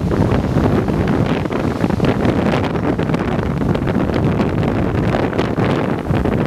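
Strong wind buffeting the microphone in uneven gusts, over the rush of heavy surf breaking against a rocky seawall.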